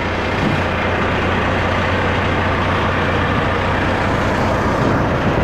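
Idling semi truck's diesel engine, a steady low hum, under an even noise of wind on the microphone.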